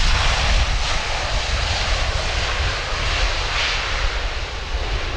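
Jet engines of an Airbus A320 (IAE V2500 turbofans) running with a steady roar as the airliner rolls down the runway after touchdown, swelling slightly a couple of times. A low rumble of wind on the microphone lies beneath.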